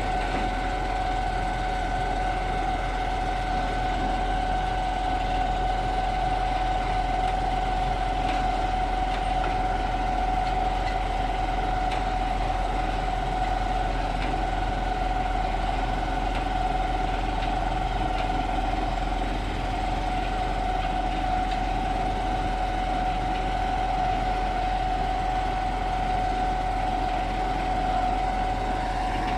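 Truck-mounted Putzmeister concrete boom pump running steadily, its diesel engine's rumble carrying a constant high whine.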